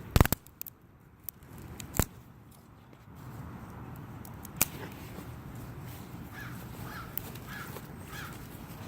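Sharp cracks of wooden sticks being broken and packed into a crate, the loudest near the start and about two seconds in, with a few lighter ones after. In the second half a bird calls four times at an even pace.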